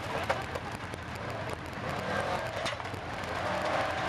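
Side-by-side UTV engine running at low revs as the machine crawls over a steel ramp obstacle, with a couple of short knocks.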